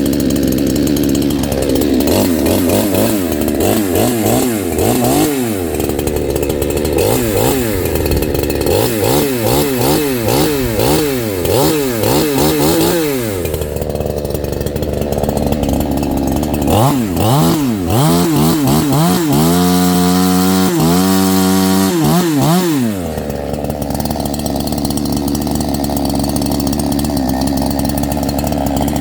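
68cc two-stroke chainsaw running and being revved in quick repeated blips, about one a second, then idling. About 17 seconds in it is revved up and held at high speed for a few seconds before dropping back to a steady idle.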